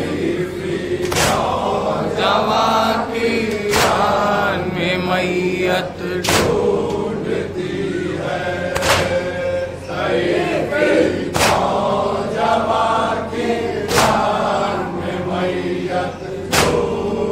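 Men chanting a Muharram noha together, punctuated by a sharp, unison chest-beating (matam) strike about every two and a half seconds, seven strikes in all.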